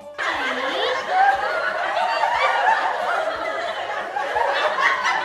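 Canned laughter: several voices laughing and snickering together, a comedy laugh track.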